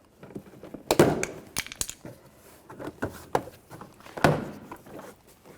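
Plastic door-panel retaining clips popping loose as a trim tool pries the interior door panel off the door frame: a series of sharp snaps and knocks, about six, unevenly spaced.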